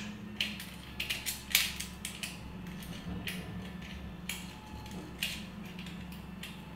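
Small plastic clicks and scrapes as the body shell and parts of an H0 model locomotive are handled and pressed into place, coming irregularly, with the sharpest click about a second and a half in. A low steady hum runs beneath.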